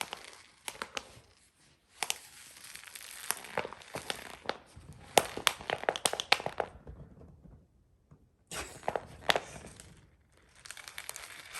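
Staffordshire Bull Terrier puppy chewing a Kong Pig toy: crunchy, crinkly crackling with sharp clicks as her teeth bite into the plastic. The chewing stops about seven seconds in and starts again a second and a half later.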